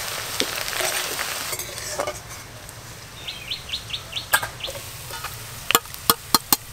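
Sliced onions sizzling as they deep-fry in mustard oil in an aluminium kadai, stirred with a spatula; the sizzle drops after about a second and a half. Past the middle a bird gives a quick run of about seven high chirps, and near the end a metal slotted spoon clinks several times against the pan and a steel bowl as the fried onions are lifted out.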